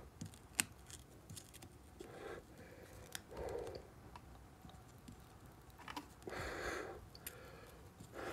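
Faint handling sounds as a wire is worked in a metal soldering jig: a few sharp small clicks, the sharpest about half a second in, and soft rustling noise that comes and goes.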